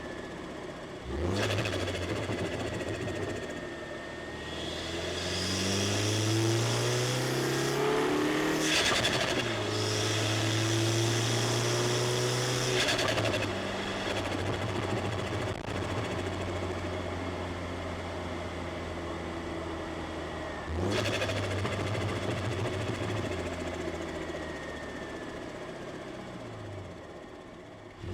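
Turbocharged four-cylinder engine of a 300+ hp modified Mini Cooper, heard from inside the cabin, pulling hard with revs climbing, then a gear change about nine seconds in and a second climb. The driver lifts off, the revs fall away, and a fresh burst of throttle comes about two thirds of the way through before the revs drop again.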